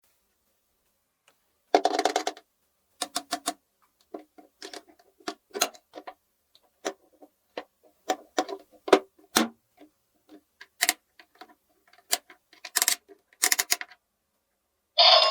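Small plastic toy pieces being handled: a short rustle about two seconds in, then many irregular sharp clicks and taps.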